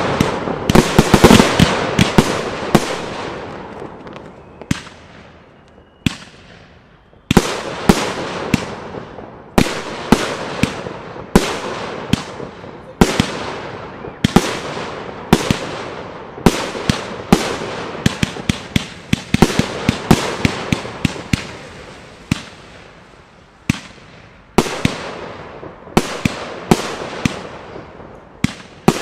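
Aerial firework shells bursting in rapid succession, many sharp bangs each with an echoing tail. The bangs thin out about four seconds in and pick up again a few seconds later.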